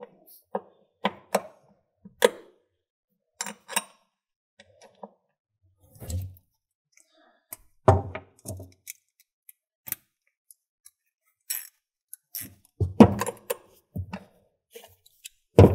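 Battery hold-down bracket and its bolt being fitted by hand over a 12V battery: irregular clinks, clicks and knocks with short pauses between them, the loudest about 8 and 13 seconds in.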